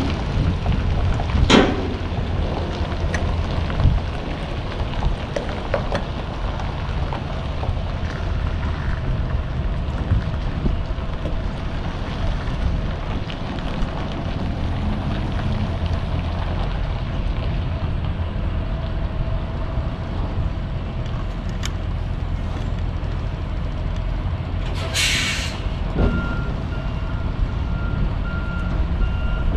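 Semi-truck diesel engine running at low speed as the tractor-trailer manoeuvres to back into a dock, with a sharp crack about a second and a half in and a one-second burst of air-brake hiss near the end. Just after the hiss the truck's reversing beeper starts beeping.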